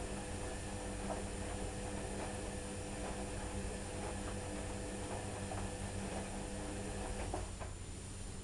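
Candy washer-dryer's drum motor turning the load slowly between rinses: a steady hum with a few faint ticks, which stops near the end.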